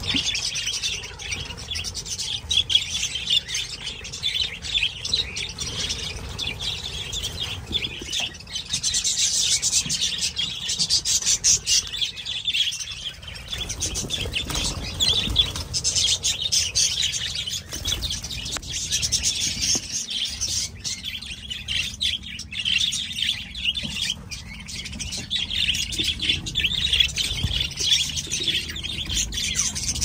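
Budgerigars chirping and chattering without a break.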